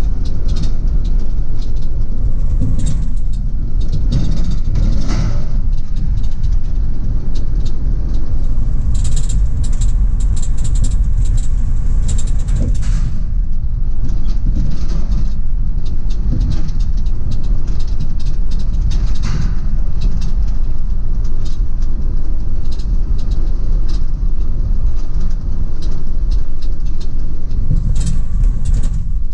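2004 GMC Savana 3500 box van being driven: a steady low rumble of engine and road noise.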